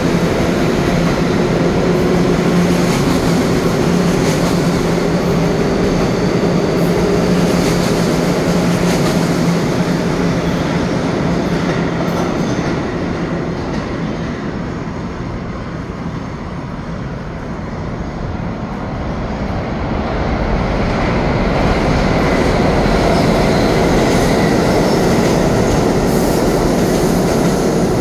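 R211A subway train pulling out of an underground station, a steady low hum over the rolling wheels, fading away over about a dozen seconds. About twenty seconds in, another subway train's rumble builds as it comes by on the far track.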